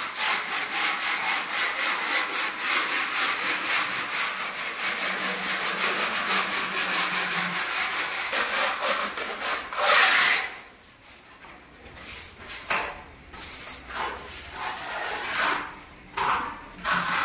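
Steel putty knives scraping wall putty across a plastered ceiling in quick, repeated strokes. After about ten seconds the strokes become sparser and quieter.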